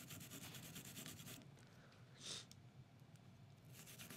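Faint scratching of a metal brush scrubbing the solvent-wetted cylinder face of a Taurus 856 revolver to loosen carbon and lead fouling, with one short louder scrape about two seconds in.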